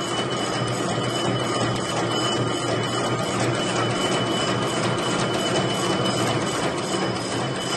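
Double-twisted barbed wire machine running steadily: a continuous rapid mechanical clatter of gears and twisting head, with a steady high whine over it.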